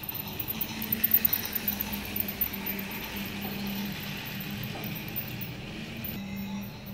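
RailKing Classic toy steam train set running past on its plastic track: a steady motor hum under a clicking rattle of wheels on the track, loudest about a second in.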